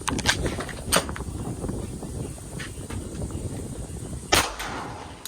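A few sharp clicks and knocks, then a single pistol gunshot about four seconds in, with a short echo.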